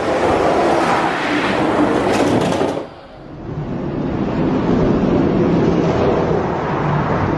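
Hot Wheels die-cast monster trucks rolling fast down a long orange plastic track, a steady rolling rattle of plastic wheels on the track. The noise drops briefly about three seconds in, then builds again.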